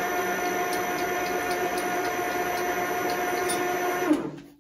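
Vertical milling machine running with an end mill cutting a slot in a metal plate, a steady motor whine with a faint regular ticking. About four seconds in it is switched off and the whine drops away as the spindle spins down.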